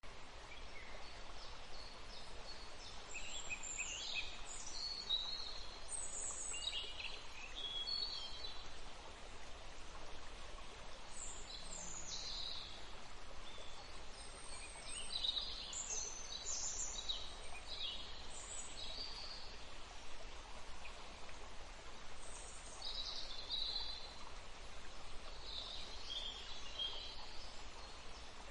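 Songbirds singing short, high phrases of chirps and trills that come in clusters with brief lulls between them, over the steady rush of a stream.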